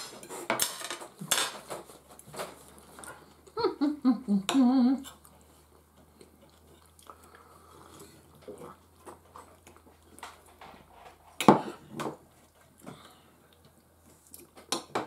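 Knives and forks clinking and scraping on ceramic dinner plates during a meal, in scattered clicks. About four seconds in, a short voice sound falls in pitch and then wavers, and a little past the middle comes one sharp, loud clink.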